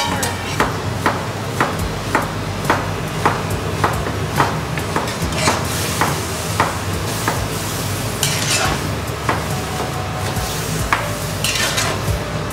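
Metal spatula stirring food in a stainless-steel wok, tapping and scraping against the pan about twice a second, over frying in hot oil. In the second half the taps give way to a few slower, longer scraping sweeps.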